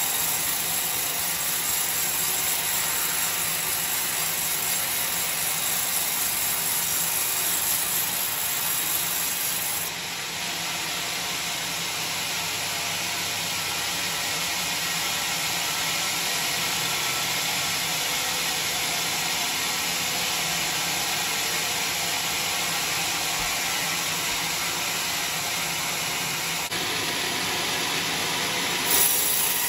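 Band sawmill running, its steel band blade cutting lengthwise through a coconut palm trunk: a steady, hissing noise.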